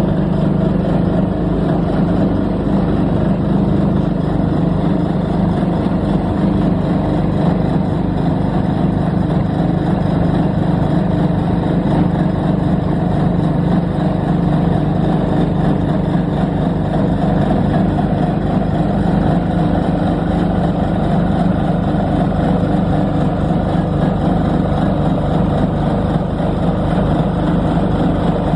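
Kohler diesel engine of a TowerLight VB-9 mobile lighting tower running and driving its 5 kVA generator, under load from the lit metal halide lamps. A low, even drone. The seller reports that this engine runs unstably and smokes.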